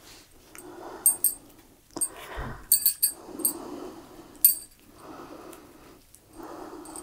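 Natural-fibre string rasping as it is pulled and wound around a rolled fabric bundle, in repeated rustling strokes about once a second, with a few sharp light clicks among them.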